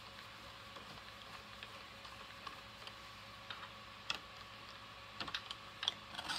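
Scattered light clicks and taps of a hand tool and small metal parts as a bolt is worked loose on a reloading press, irregular rather than rhythmic, with a few sharper clicks in the last couple of seconds.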